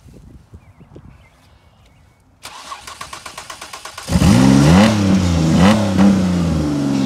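Straight-piped Ford Escape engine with its oil drained, cranking on the starter for about a second and a half, then catching about four seconds in and running loud, revving up and down.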